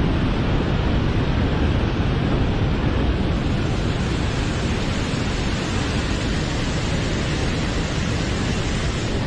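Floodwater pouring out of the Three Gorges Dam's spillway outlets in jets: a steady, deep rushing of water.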